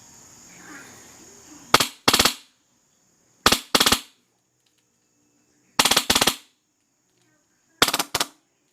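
Wolverine Inferno HPA airsoft gun firing on full auto at its medium rate setting: four short, rapid bursts of sharp cracks, about two seconds apart.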